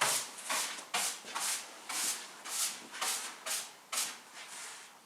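Quick back-and-forth rubbing strokes on wood, about two a second, fading out near the end.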